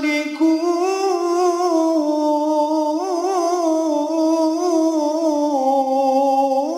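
A man's solo voice in melodic Qur'anic recitation (tajweed), holding one long ornamented vowel that waves and steps up and down in pitch without a break.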